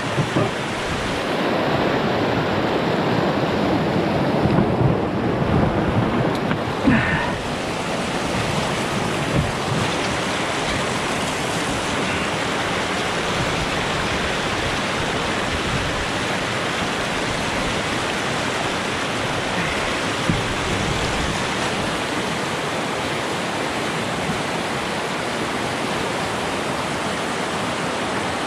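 Rushing water of a small river running through class 1–2 rapids: a steady, even rush close to the microphone.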